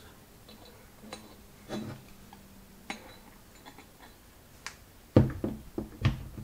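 Metal carburettor body and small parts handled on a workbench: a few faint clicks, then a couple of louder knocks and clinks about five and six seconds in as the carb is set down on the bench mat.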